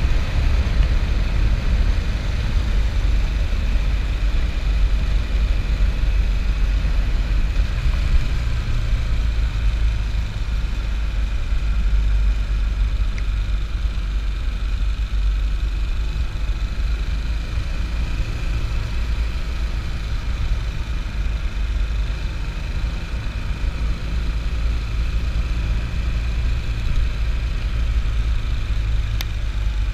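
Motorcycle engine running steadily at cruising speed, a continuous low drone mixed with wind rush, heard from a camera mounted on the moving bike.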